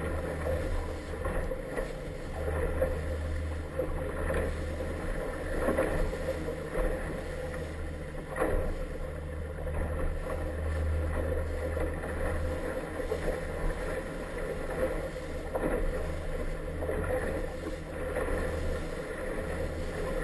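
Inflatable motorboat running across choppy water: a steady low engine and wind rumble, with the hull slapping the waves a few times.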